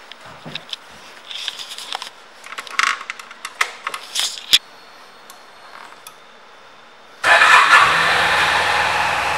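Keys and their tag rattling and clicking at the ignition of a 2012 Honda Silver Wing 600 ABS scooter; then, after a short pause, about seven seconds in its parallel-twin engine starts and settles into a steady idle.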